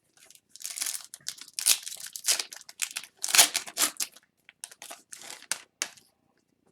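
Foil wrapper of a hockey card pack being torn open and crinkled: a run of rasping rips and crackles that stop near the end.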